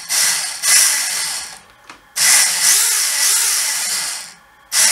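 The four brushed motors and plastic gears of a Syma X8C quadcopter, propellers off, running in bursts with short pauses between, their pitch rising and falling with the throttle. The motors are being driven by a newly fitted main flight-controller board under test.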